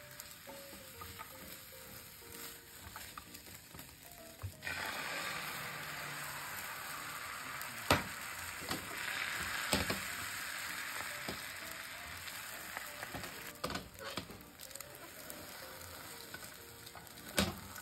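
Beaten egg sizzling in a hot rectangular tamagoyaki pan on a gas burner. The sizzle jumps suddenly louder about four and a half seconds in as a fresh layer of egg hits the pan, then eases off after several seconds. Chopsticks click against the metal pan a few times while the omelette is rolled.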